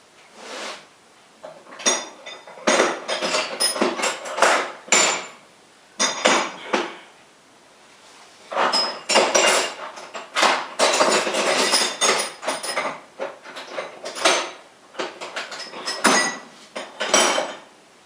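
Irregular bursts of metal-on-metal clattering and scraping, with bright ringing tones, from work at a mini lathe on a piece of hard steel.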